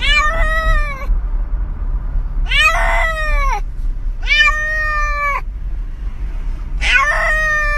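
Domestic cat meowing loudly four times, long drawn-out calls that rise and then fall in pitch, over a steady low rumble.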